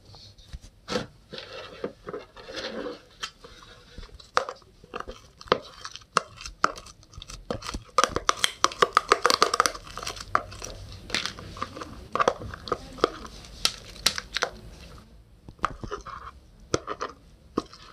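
Purple galaxy slime being squished and stretched by hand, giving many sharp sticky pops and clicks, thickest around eight to ten seconds in.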